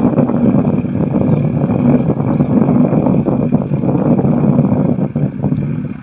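Diesel engine of a red Mahindra tractor running steadily under load as it drags a levelling blade across tilled soil.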